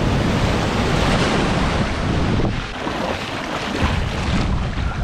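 Ocean surf washing and foaming in the shallows, with wind buffeting the microphone.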